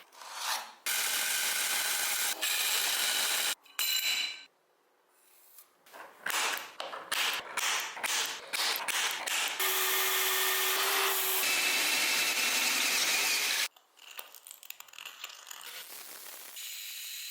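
Power tools working an aluminium cube: stretches of steady, dense grinding or sanding noise that start and stop abruptly, broken by runs of quick clicks and taps. For about two seconds in the middle a steady motor tone runs under the noise.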